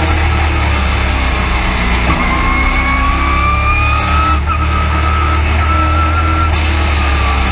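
Short-track race truck's engine heard from inside the cab, running hard under load. Its pitch climbs from about two seconds in and then holds steady, over a constant low rumble.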